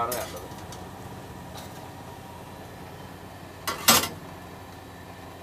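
A metal skimmer scrapes and clanks against an iron kadai as fried snack balls are scooped out of bubbling oil, with a sharp double clank about four seconds in. Steady frying sizzle runs underneath.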